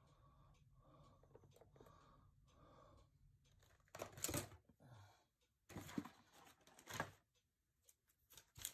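Near silence: faint room tone with a few soft handling clicks and rustles, the loudest about four seconds in.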